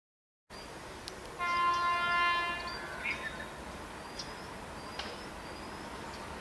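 Indian Railways WAP-7 electric locomotive's horn, heard far off, sounding one steady blast of about a second, about a second and a half in. After it comes a low steady hiss with a few faint high chirps.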